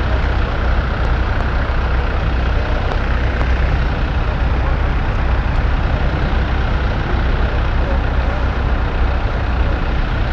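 Honda CG Fan 160's single-cylinder four-stroke engine running steadily under way, under heavy wind buffeting on the microphone. The engine has developed an abnormal noise that the rider calls a bit loud and not normal.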